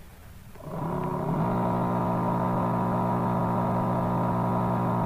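Electric water pump motor switching on under a second in, its hum rising briefly as it spins up and then running at a steady pitch while it feeds water through the hose.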